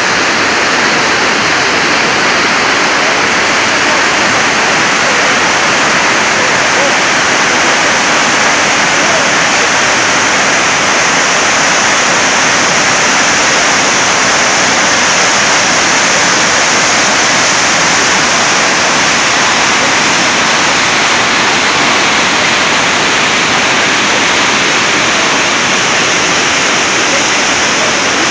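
Waterfall: a loud, steady rush of falling water that does not let up.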